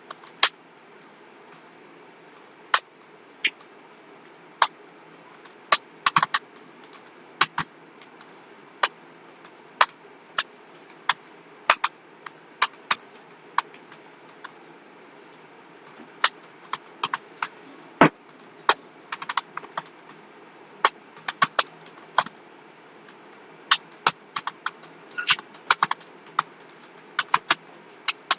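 Computer keyboard being typed on at an uneven, unhurried pace: single key clicks and short runs with pauses of up to a couple of seconds between them, over a faint steady hiss.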